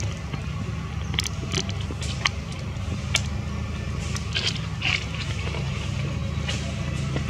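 Steady low engine hum running throughout, with scattered short high clicks and brief squeaks over it.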